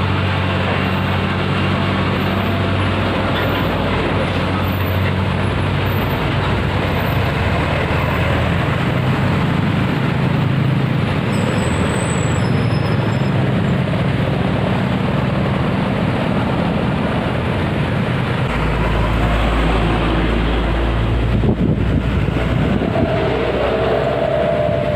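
Heavy diesel traffic passing close by: a loaded flatbed semi-trailer truck and a coach go past, then a minibus, a car and motorbikes, with engine drone and tyre noise throughout. A deeper rumble comes in about three quarters of the way through as another heavy truck approaches.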